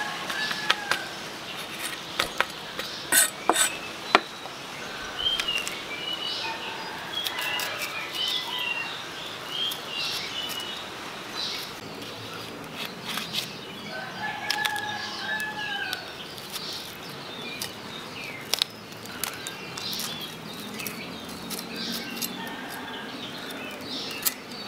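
Knife tapping and scraping on a wooden chopping board as large chilies are slit and their seeds cut out, with sharp knocks bunched in the first four seconds and scattered taps after. Birds chirp in the background, and a chicken calls a couple of times.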